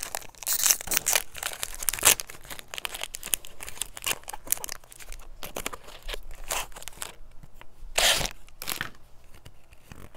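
Foil Pokémon booster pack wrapper crinkling and being torn open by hand, with a louder rip of the foil about eight seconds in.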